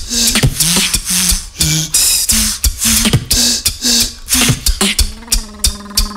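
Drum and bass beatboxing: rapid mouth-made snares and hi-hats over short punchy bass notes at a steady beat, going into a held, humming bass tone for about the last second.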